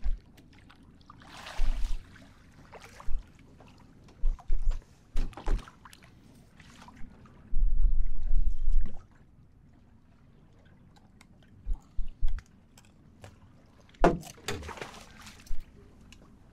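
Wind buffeting the microphone in short gusts, with one longer, louder gust about halfway through, over water sloshing against a small boat's hull. Scattered sharp knocks and rattles of fishing tackle being handled while a fish is unhooked, the loudest knock near the end.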